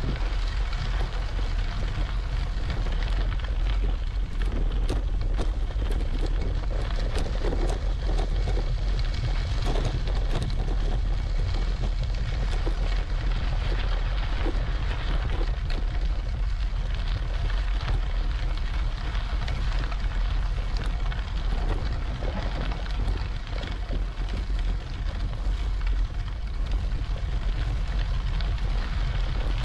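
Wind buffeting the microphone: a steady, heavy low rumble with light crackling.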